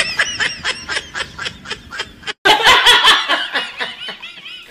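Rapid, high-pitched snickering laughter, about five or six short bursts a second. It breaks off with a brief silence a little over two seconds in, then a man laughs loudly.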